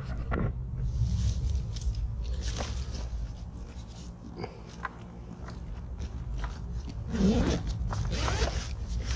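Crinkling rustles and light clicks of food packets and cooking kit being handled, in two busier spells, over a steady low hum.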